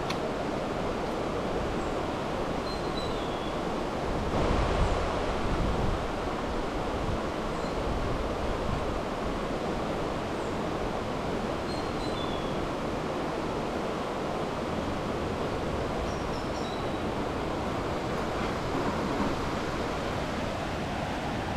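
A rain-swollen river rushing over rocks, a steady rushing noise, with a few faint bird chirps. About four seconds in the sound briefly swells louder with a low rumble.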